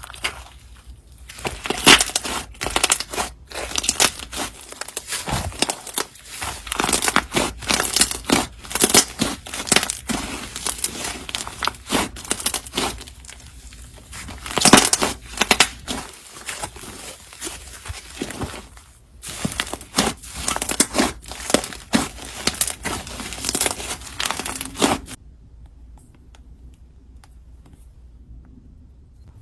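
Slime being mixed with clay: a dense run of sticky crackling and tearing sounds in quick, irregular bursts, which drops away about 25 seconds in.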